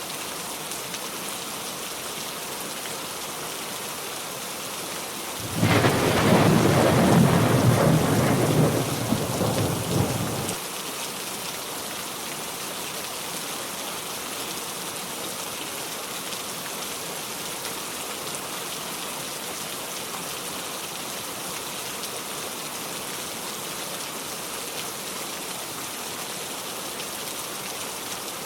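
Steady heavy rain, with a loud crash and rumble of thunder about five seconds in that lasts about five seconds and stops abruptly; the rain goes on evenly after it.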